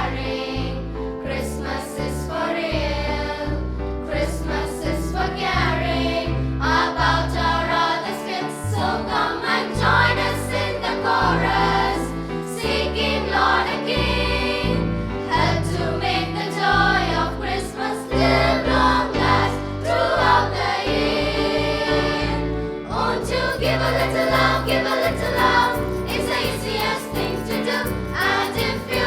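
A choir of young voices singing a Tamil Christian Christmas song over a keyboard backing with bass and a steady beat; the percussion grows busier about two-thirds of the way through.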